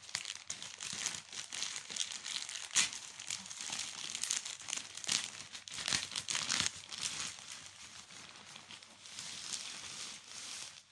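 Plastic courier pouch crinkling and tearing as it is ripped open by hand and pulled back off the packed item, with a sharp rip about three seconds in; the rustling is busiest in the first seven seconds and softer after.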